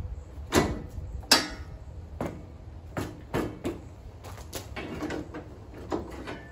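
Steel sleeve hitch frame clanking and knocking against a garden tractor's rear hitch as it is kicked and shoved into place with a boot. A series of sharp metal knocks, the two loudest about half a second and a second and a half in, the second ringing briefly, then lighter knocks.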